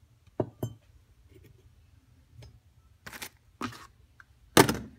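A cardboard parcel being handled and opened on a workbench: two sharp knocks about half a second in, then rustling, scraping cardboard and packaging, loudest just before the end.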